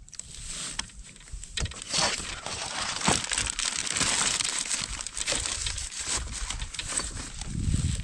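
Steady crinkling and rustling, thick with small clicks, from gear being handled close by. It is faint in the first two seconds, then continuous to the end, with a low thump near the end.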